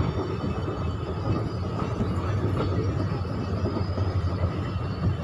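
Passenger train running along the track into a station, a steady rumble of wheels and coaches with no distinct clacks or horn.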